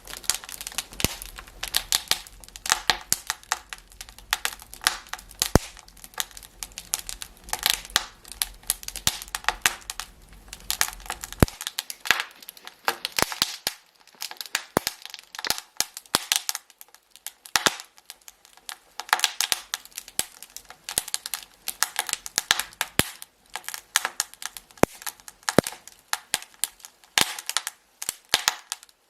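Wood fire crackling in a fireplace: a dense, irregular run of sharp snaps and pops.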